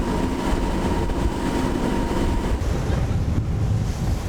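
Cruise boat's engine running steadily under way, with wind buffeting the microphone. A faint steady whine above the rumble stops about two and a half seconds in.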